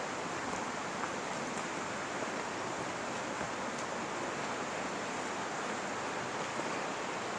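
Steady, even rushing hiss with no distinct events, like running water or wind in the outdoors.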